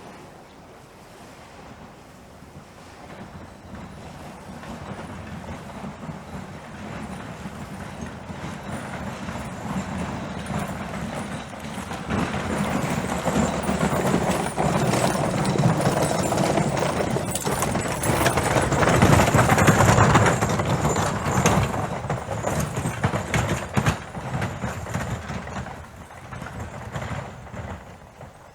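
Hoofbeats of horses passing by, growing steadily louder, loudest about two-thirds of the way through, then fading away near the end.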